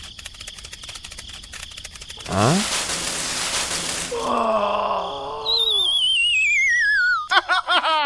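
A string of comic sound effects: a patter of rapid clicks, a quick rising swoop with a burst of hiss about two seconds in, a wavering tone, then a long wobbling whistle that falls in pitch and breaks into quick downward chirps near the end.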